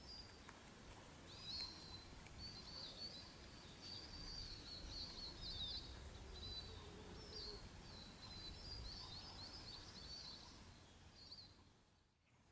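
Faint birdsong: short phrases of quick, high chirps and twitters, repeating over a low outdoor background rumble, fading out near the end.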